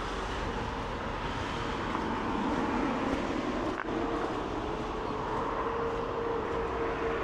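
Steady hum of motor-vehicle traffic, with one held tone that grows louder near the end.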